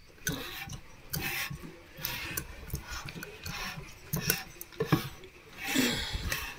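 Partly assembled Briggs & Stratton Vanguard V-twin crankcase being handled and turned over on a wooden workbench: scattered light metal clinks and knocks, with low thuds as it is shifted on the bench.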